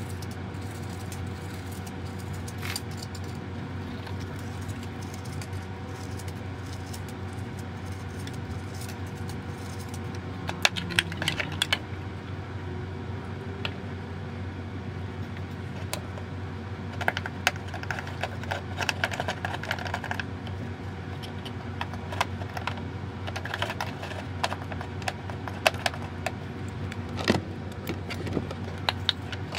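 Small items and packaging handled by hand, giving clusters of light clicks and crinkles in a few bursts, over a steady low hum.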